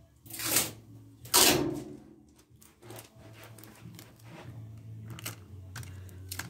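Clear plastic film rustling and crinkling as it is handled and pressed over a compressor's two open cylinder bores: two loud rustles near the start, then a run of small crackles.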